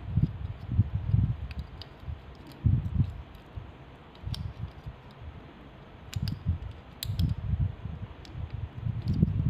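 Uneven low rumbling handling noise with several light, sharp clicks scattered through it, as small parts of a car brake light switch are handled and fitted by hand.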